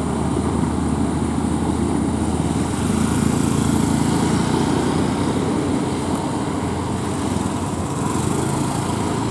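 Heavy vehicle engine running steadily, a low drone that swells a little partway through.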